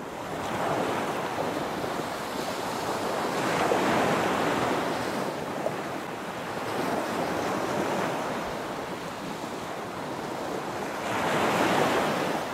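A steady rushing noise that swells about four seconds in and again near the end.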